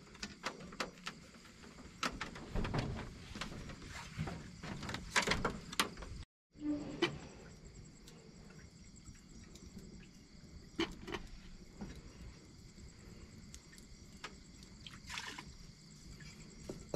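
Open wood fire crackling while cookware is handled beside it, giving scattered sharp clicks and knocks, most of them in the first few seconds. Night insects keep up a steady high chirring behind.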